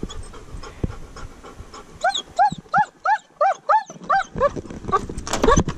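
Dog panting, then, about two seconds in, whining in a quick run of short high cries, about three a second, with louder whines near the end.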